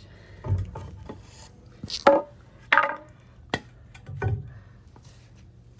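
Tire levers and the spoked motorcycle wheel being handled during tire removal: about five separate knocks and metallic clanks, the loudest two in the middle with a brief ring.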